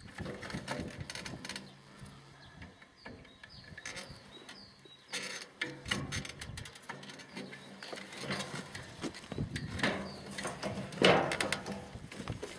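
Hand-work handling noise: irregular clicks, knocks and rustles of tools and materials being moved about, with a louder rustling clatter about eleven seconds in. Faint bird chirps behind.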